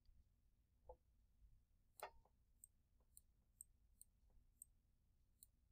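Faint, scattered clicks of a computer mouse over near silence, about eight at irregular intervals, the one about two seconds in the loudest.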